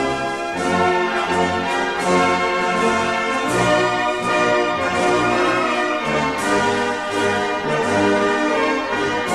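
Orchestral anthem music led by brass, moving in sustained chords.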